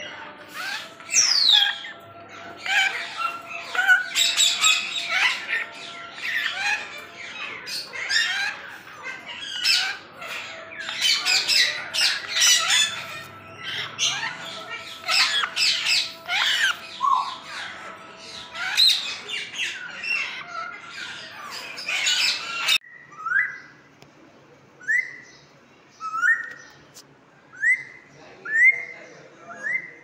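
Congo African grey parrots squawking and chirping, a dense stream of rapid harsh calls. After an abrupt cut about 23 seconds in, this gives way to a run of short rising whistles, about one a second.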